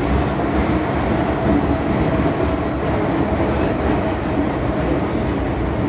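MTR Island Line M-Train running underground, heard from inside the car: a steady, loud rumble of wheels on track with a constant drone.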